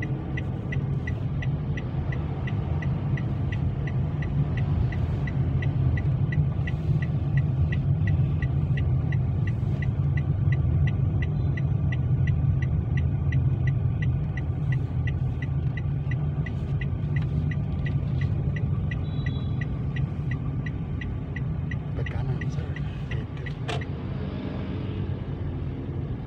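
Inside a moving Toyota car: steady low engine and road rumble, with the turn-signal indicator ticking at an even pace of about two to three ticks a second, as the car signals for a left turn. The ticking stops a few seconds before the end, followed by a single sharp click.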